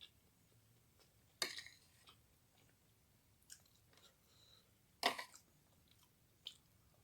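Close-up chewing of a mouthful of fried rice, with small mouth clicks and two louder sharp clicks about a second and a half in and about five seconds in.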